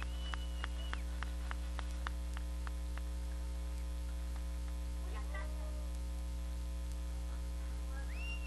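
Steady electrical mains hum running under the whole recording, with a row of sharp ticks about three a second over the first few seconds and a voice starting near the end.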